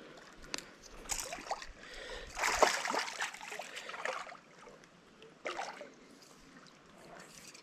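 Shallow creek water splashing and sloshing in irregular bursts, the loudest lasting a couple of seconds.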